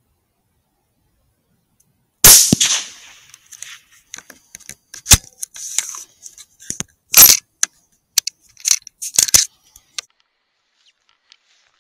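Sako 85 Varmint .223 rifle fired once about two seconds in, a loud crack that rings off briefly, followed by a run of sharp metallic clacks and clicks as the bolt is worked.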